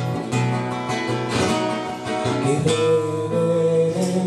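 Acoustic guitar strummed in chords, a fresh stroke about once a second with the notes ringing on between. A singer's voice comes in on a single word about halfway through.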